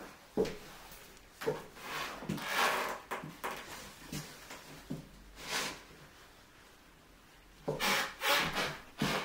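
Someone moving about on a wooden floor: scattered footsteps, scuffing and rubbing sounds, with a sharp knock about half a second in and a cluster of scuffs near the end.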